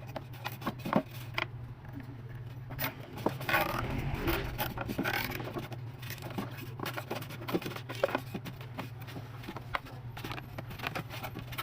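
Irregular scraping, scratching and clicking of materials being worked by hand, denser for a couple of seconds around the middle, over a steady low hum.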